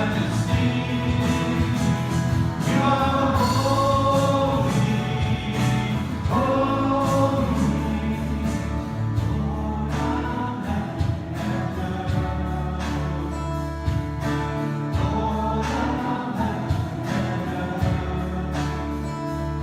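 Worship song in a church service: several voices sing long held lines over a band with bass and strummed guitar.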